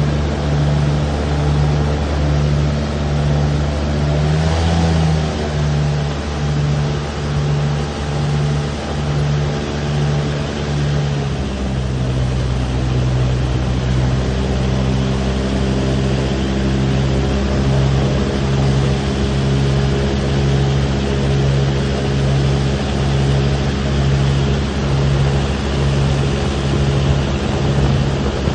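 Airboat engine and propeller running steadily under way, a loud drone with a regular throb about one and a half times a second. The pitch lifts briefly about five seconds in, then settles slightly lower about twelve seconds in.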